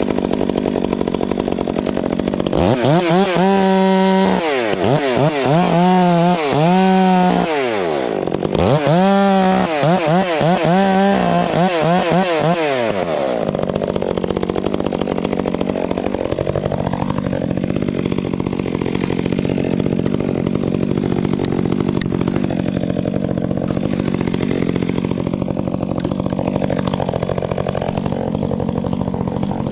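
Two-stroke chainsaw revved in a series of throttle blips for about ten seconds, its pitch swinging up and down, then settling into steady idling.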